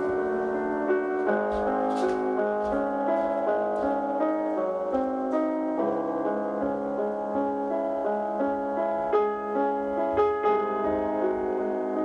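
Background piano music: a slow, steady run of sustained notes and chords.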